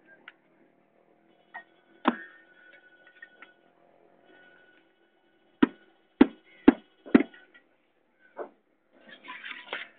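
Sharp strikes, likely hammering at a construction site: one about two seconds in, then four in quick succession about half a second apart, then one more, with a faint ringing lingering after some of them.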